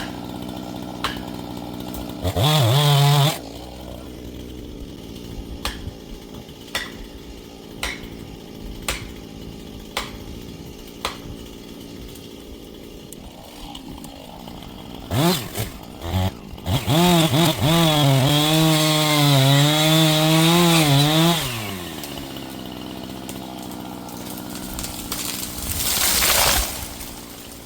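Husqvarna chainsaw idling with a sharp tick about once a second, revved briefly about two seconds in, then run at full throttle through a cut from about 15 to 21 seconds, its pitch wavering under load. A loud burst of noise follows near the end.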